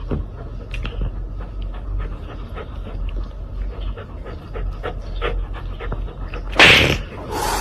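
Dog panting in short, quick breaths, a few a second, followed by a louder burst of noise near the end.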